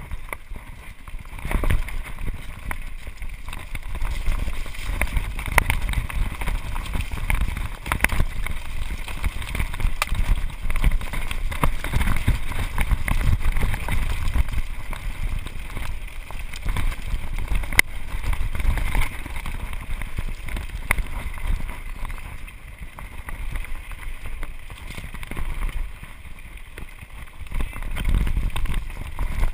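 Mountain bike riding fast down a rocky singletrack, recorded on a GoPro Hero HD: a steady rumble of wind on the microphone and tyres on stone, with frequent sharp knocks and rattles from the bike over bumps.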